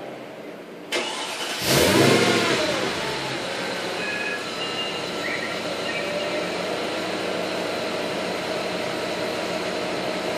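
Car engine being restarted: a click about a second in, then the engine starts about a second and a half in, flares up in revs and falls back to a steady idle. It runs evenly, out of the hiccuping mode it had before the restart.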